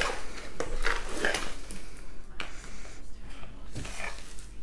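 Handling noise from a diamond painting canvas being turned over and moved about by hand: irregular rustles with scattered light taps and clicks.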